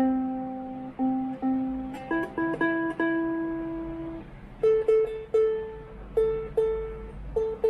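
All-koa soprano ukulele, single strings plucked one at a time: a low note struck several times and left to ring, then a higher note, then a still higher note plucked about twice a second.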